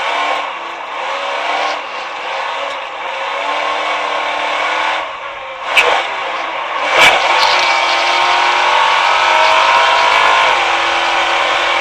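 Off-road racing buggy engine revving hard, with two sharp bangs about six and seven seconds in; after them the engine holds high revs and climbs in pitch.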